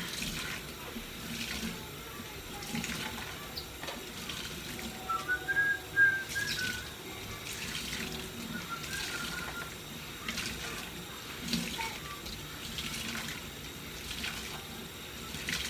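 Kitchen tap running into a stainless steel sink while a soapy sponge is squeezed and rinsed under the stream, with repeated splashing and squelching about once a second. A short high whistle-like tone sounds about five to seven seconds in.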